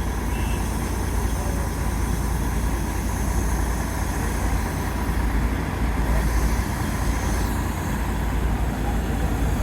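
Steady road traffic noise of motor vehicles running at a busy junction, with a continuous deep rumble.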